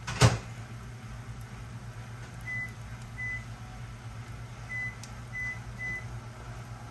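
Microwave oven door shutting with one sharp clack, then its keypad beeping five times: short high beeps, a pair and then three, over a steady low hum.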